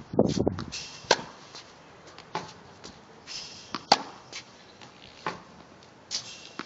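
Tennis racket hitting balls on a hard court: sharp pops a few seconds apart, the loudest about a second in and again about four seconds in, with lighter ball bounces between them. A brief low rumble at the start.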